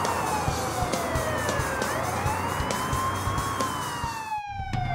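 Emergency-vehicle wail siren, its pitch rising slowly for about three seconds and then falling, with a brief break near the end.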